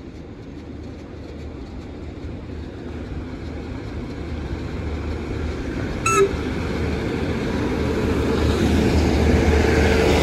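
Class 150 Sprinter diesel multiple unit approaching and passing close by, its underfloor diesel engine rumble and running noise growing steadily louder. A brief sharp tone sounds about six seconds in.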